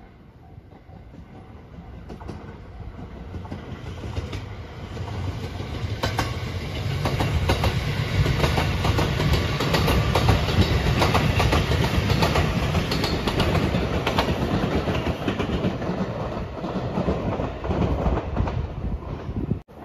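Rapid Marine Liner electric multiple-unit train passing at speed. It grows louder over about seven seconds, then runs past with a low rumble and a quick clickety-clack of wheels over rail joints, and fades. The sound cuts off abruptly near the end.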